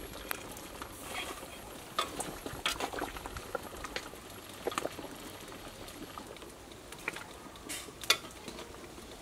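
Large pot of water boiling as rice noodles are stirred in it, with irregular sharp clicks of metal utensils knocking against the pot; the loudest click comes near the end.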